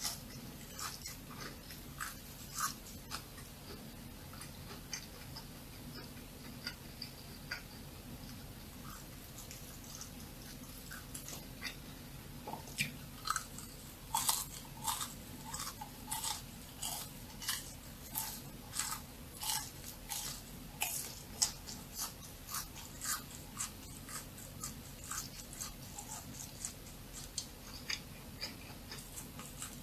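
Close-miked eating of a fried, sugar-coated churro: crisp crunching bites and chews, scattered at first, then a steady run of louder crunching chews about every half second to second from about halfway through.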